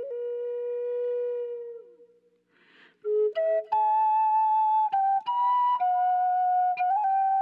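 Background music: a slow solo flute melody of long held notes. The first note fades out about two seconds in, and after a short breathy pause the melody resumes with a string of held notes.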